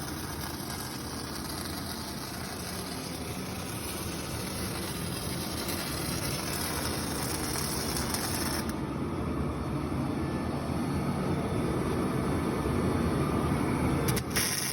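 Mini excavator running as it digs with its bucket: steady machine noise with dense clattering that grows gradually louder.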